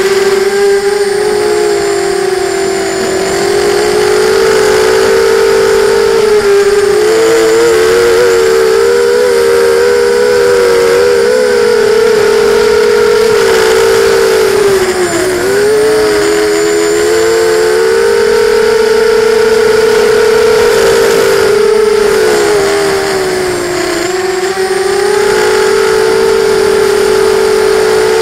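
QAV250 racing quadcopter's four brushless motors and propellers whining as heard from its onboard camera, the pitch rising and falling with the throttle. The pitch drops sharply for a moment about halfway through, and briefly again a few seconds before the end.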